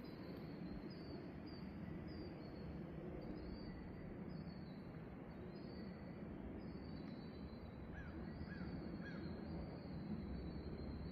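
Open-air nature ambience: a continuous high insect trill with repeated short rising notes, three quick bird chirps about eight seconds in, over a steady low rushing noise.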